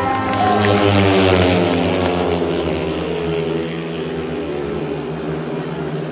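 Speedway motorcycles' 500 cc single-cylinder methanol engines racing at full throttle. The nearest bike's pitch falls over the first few seconds as it passes and pulls away, settling into a steady drone from the pack going around the track.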